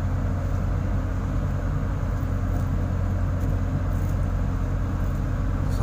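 An engine running steadily, a low even drone that holds one pitch throughout.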